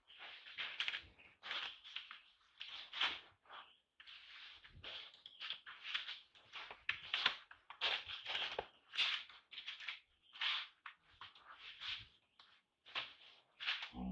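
Irregular dry rustling and crackling, several short scrapes a second, with a dull thump near the end.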